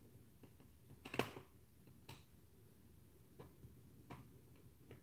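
Near silence broken by a few faint plastic clicks and taps from hands working at a laptop's case, the sharpest about a second in.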